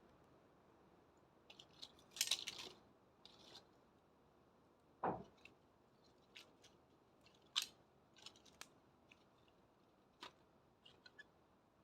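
Bonfire crackling: irregular snaps and pops over a low hiss, with a quick run of crackles about two seconds in and single sharp pops scattered after.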